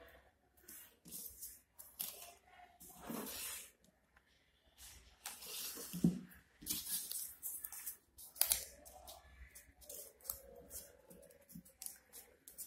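Paper leaves rustling and crinkling in irregular bursts as they are handled and pressed into place, with a sharper knock about six seconds in.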